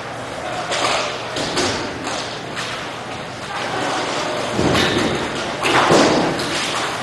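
Roller hockey play echoing in a large rink: scattered thuds and knocks of sticks, puck and boards, the loudest about five and six seconds in.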